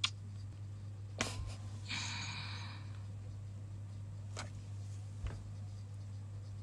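Close-up kiss sounds into the microphone: a few short, sharp lip smacks and a soft breathy sigh about two seconds in, over a steady low hum.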